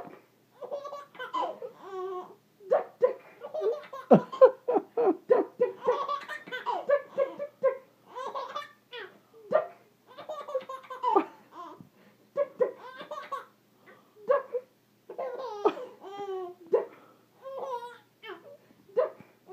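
A three-month-old baby girl laughing in short repeated bursts, mixed with a woman's laughter.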